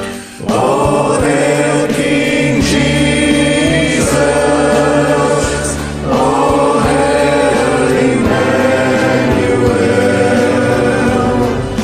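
Men's choir singing a gospel worship song, in two long phrases, the second starting about six seconds in after a brief break.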